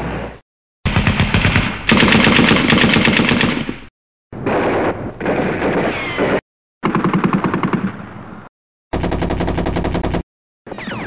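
A run of separate automatic-gunfire sound effects: about five short bursts of rapid machine-gun fire, each a fast even string of shots, with a brief silence between one clip and the next.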